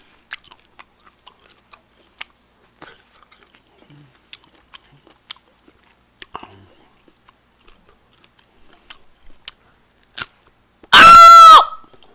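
Close-miked chewing of chewy raw skate salad: faint wet mouth clicks and smacks, scattered a few to the second. About eleven seconds in comes one loud, brief, high-pitched vocal squeal held on a steady pitch for about half a second.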